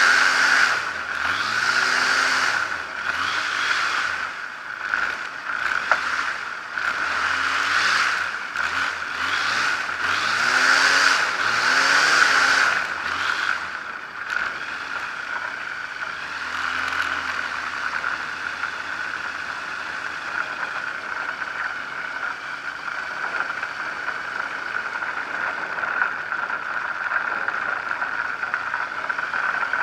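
Zenair 701 light aircraft's engine and propeller running at low power while taxiing on a rough dirt strip. During the first half the engine pitch rises and falls again and again and the airframe rattles over the bumps. After that it settles into a steadier run.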